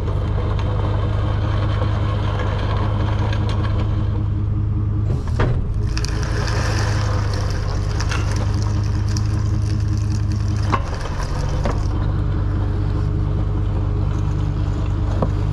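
Tow truck's engine running steadily at low revs as the truck creeps in close to a car, with a sharp knock about five seconds in and another near eleven seconds.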